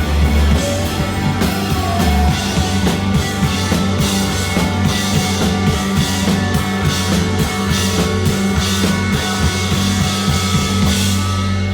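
Rock band playing live: busy drum-kit hits over guitar and bass. Near the end the drums stop, leaving a held chord ringing.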